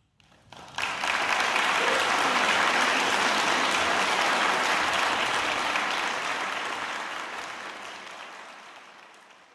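Audience applauding: the clapping breaks out about a second in, holds steady, then fades away over the last few seconds.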